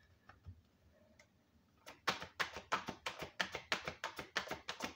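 Oracle card deck being shuffled by hand, heard as a quick, even run of card clicks, about five a second, starting about two seconds in after a near-quiet opening.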